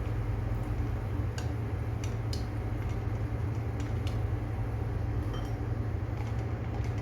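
Chicken onion fritters (ullivada) deep-frying in hot oil on a gas stove: a steady low hum with sizzle, and a few light clicks of a spoon against the pan.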